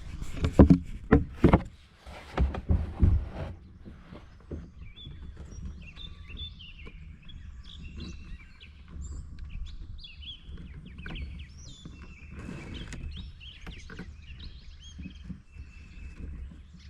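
A few sharp knocks and clatter in the first three seconds, fitting fishing gear being handled in the kayak. Then birds chirping and singing steadily over a low background rumble.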